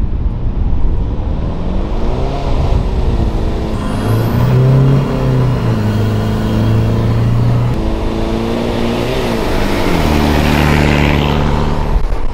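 A four-wheel drive's engine under load on beach sand, revving up and settling back several times, over wind and tyre noise.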